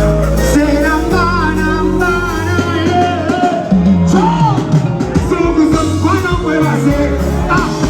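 Loud backing music over a live sound system with a heavy bass line, the bass dropping out briefly about a third of the way in, and a singing voice weaving over it.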